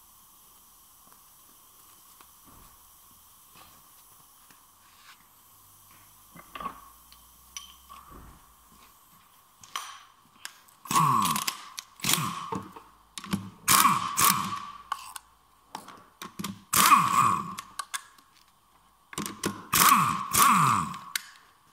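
Ratchet wrench clicking in short bursts, five times in the second half, as bolts are worked on the end cover of a manual gearbox.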